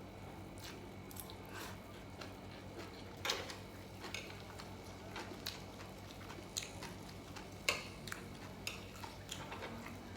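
Close chewing and biting while eating Korean barbecued pork belly: irregular small crunches and mouth clicks, with two louder bites about three seconds and seven and a half seconds in, over a faint steady hum.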